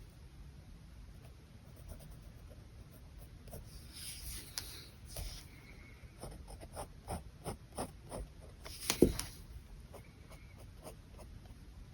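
Pen scratching across paper in sketching strokes. There are a few longer scratchy strokes about four seconds in, then a run of short quick strokes, the loudest about nine seconds in.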